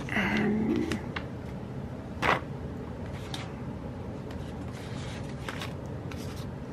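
Hands handling a paper planner and sticker sheets: soft rustling with a few small clicks and taps, one sharper tap about two seconds in.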